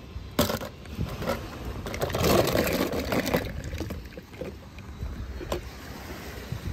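Water splashing and sloshing as a toy car falls into a small water-filled toy pool, with a sharp knock about half a second in and another near the end.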